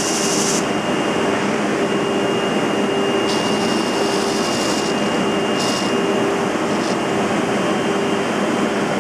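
Wide drum sanding machine running steadily, its abrasive drum and feed roller working a bamboo board fed through it. A high hiss rises and falls several times over the even machine noise.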